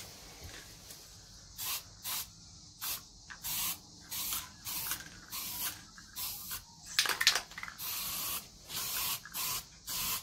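Aerosol can of metal primer spraying in short hissing bursts, about two a second, with one longer burst after the middle. Just before that longer burst comes a brief, louder clatter of clicks.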